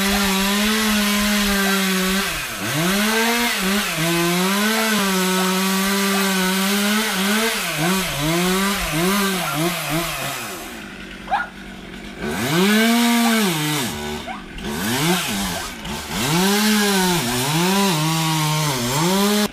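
Two-stroke chainsaw running at high revs while cutting cedar wood, its pitch repeatedly sagging and recovering under load. About ten seconds in it drops back and goes quieter for a couple of seconds, then revs up and cuts again.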